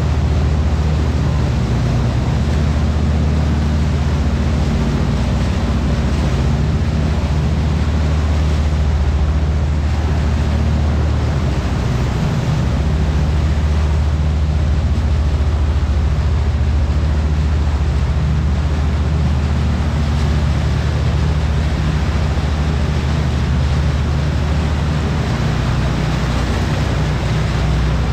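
River boat's engine running at a steady cruise, a low, even hum, with a constant rush of water and wind over it.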